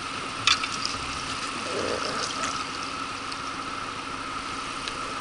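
A steady engine hum at idle, with a single sharp click about half a second in.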